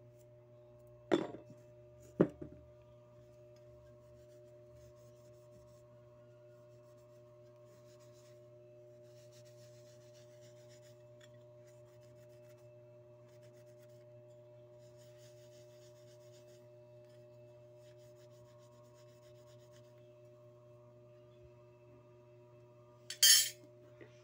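Brass badge and belt buckle clinking together twice with a short metallic ring, then a cloth rubbing faintly on the buckle, over a steady low hum. A brief louder handling scuff near the end.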